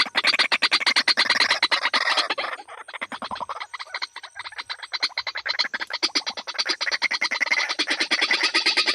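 Rapid, evenly pulsed croaking calls, many a second, that fade down a few seconds in and swell again near the end.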